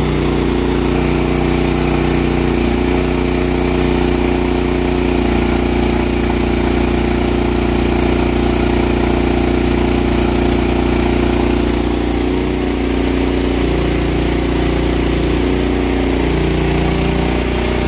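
Kohler engine on a portable generator running steadily while it powers a test load. Its note wavers slightly in the last few seconds.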